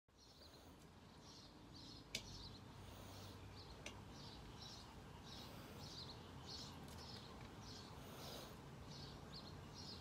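Faint outdoor ambience with a high chirp repeating about twice a second. Two sharp clicks a couple of seconds in, a green-cheeked conure's beak knocking on Lego bricks.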